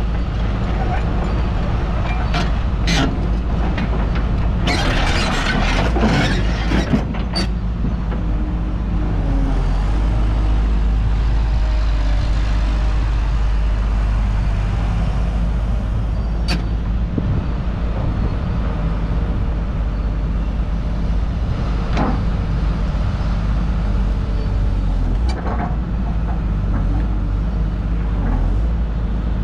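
Komatsu PC210LC-8 hydraulic excavator's six-cylinder turbo diesel running steadily under load as the boom, arm and bucket are worked. A cluster of sharp metallic clanks and rattles comes a few seconds in, with a few single knocks later.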